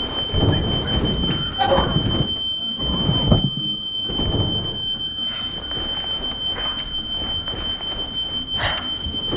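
A steady high-pitched electronic tone rings without a break over rumbling low noise.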